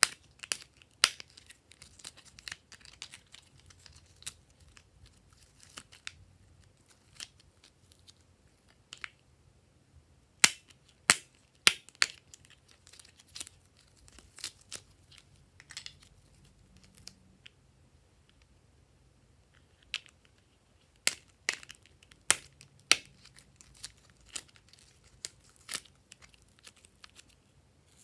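Plastic pill organizer lids clicking as they are snapped open and shut: sharp, irregular clicks, some in quick clusters, with fainter plastic handling noise between.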